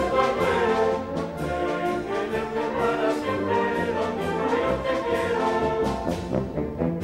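Street brass band (charanga) playing as it marches: trombones, trumpets and sousaphone carrying the tune, with drums keeping a steady beat.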